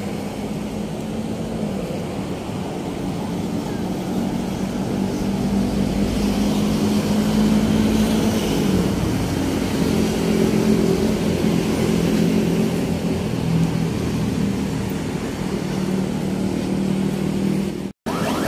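Road traffic: engines of passing vehicles running steadily with a low hum that shifts in pitch, louder from about six seconds in. The sound cuts out for an instant near the end.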